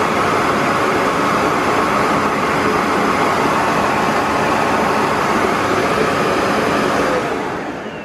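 Bosch Roxx canister vacuum cleaner running steadily at its maximum power setting with the floor nozzle taken off, then switched off about seven seconds in, its motor running down.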